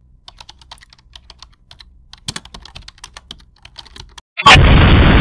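Typing on an HP laptop keyboard: a run of quick, light key clicks. After a brief pause, a sudden loud burst of static-like hiss cuts in near the end.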